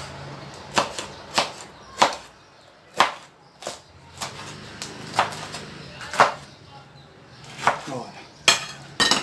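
Knife chopping bell peppers against a cutting board: about a dozen sharp, irregular knocks.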